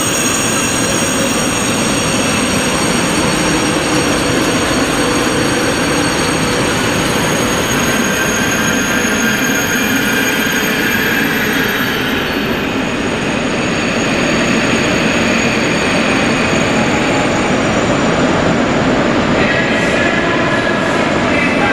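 TGV double-deck high-speed trains rolling slowly through the station: a steady loud rumble of wheels with high-pitched wheel squeal. Near the end a new, lower squeal starts as another train comes in.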